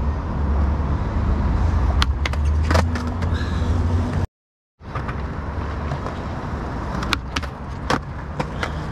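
Skateboard wheels rolling over concrete with a heavy low rumble, broken by sharp clacks of the board. After a cut about four seconds in, the rolling resumes and more clacks come near seven and eight seconds, as the board slides and strikes on a concrete ledge in a frontside tailslide.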